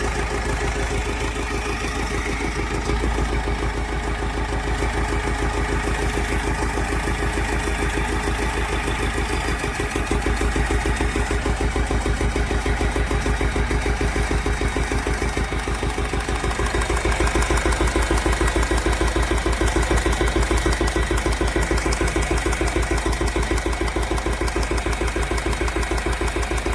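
Mahindra Scorpio mHawk four-cylinder common-rail diesel engine idling with a rhythmic tak-tak knock. The knock stops when the number 2 cylinder's injector socket is pulled, which the mechanic takes for a seized piston.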